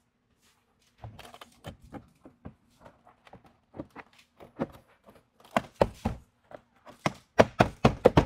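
Hands knocking and tapping on a pickup truck's rear door glass and frame while fitting window tint film: scattered light taps, then a quicker run of louder knocks in the last two seconds.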